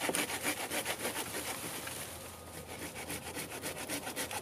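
A folding hand saw cutting through a hardwood branch with fast, even back-and-forth strokes. The strokes ease off for a moment about halfway, then pick up again.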